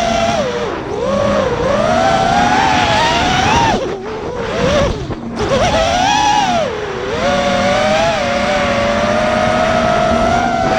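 FPV racing quadcopter's motors and propellers whining, the pitch rising and falling with the throttle, dropping sharply about four seconds in and again near seven seconds, then holding fairly steady.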